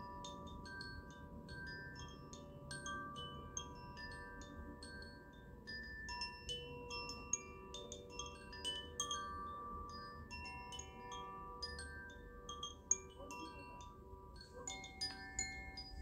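Wind chimes ringing, struck irregularly so that many clear tones overlap and hang on, each strike starting with a light metallic tinkle.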